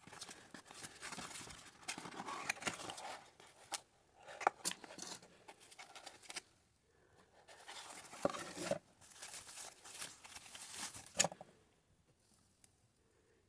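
Packaging being unwrapped and handled: rustling, crinkling and tearing in several bursts, with a few sharp clicks, the loudest near the end.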